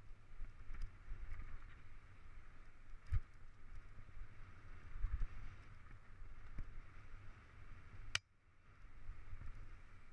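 Mountain bike rolling over a rough dirt trail: a steady rumble of wind and riding noise on the microphone with a hiss over it, and scattered knocks as the bike hits bumps. A sharp click about eight seconds in, after which the sound briefly drops away.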